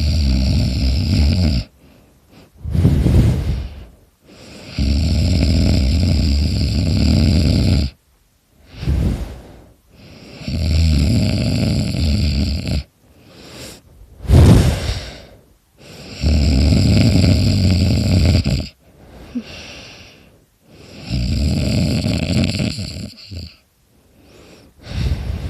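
A sleeping person snoring loudly: long snores of two to three seconds, about every five seconds, with shorter, softer breaths between them.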